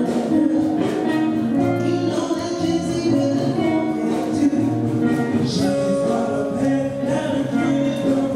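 Live dance band playing cha-cha-cha music, with a vocal line over a moving bass.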